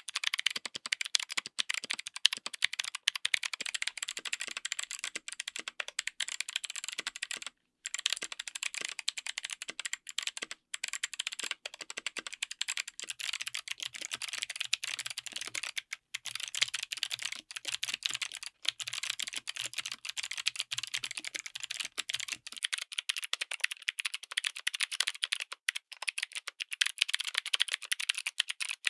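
Continuous fast typing on a mechanical keyboard fitted with clicky switches: a dense run of sharp, crisp keystroke clicks, pausing briefly now and then.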